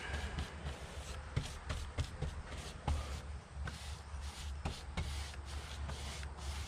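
Paint being worked onto a metal garage door panel: soft brushing or rolling with scattered light taps and clicks, over a steady low hum.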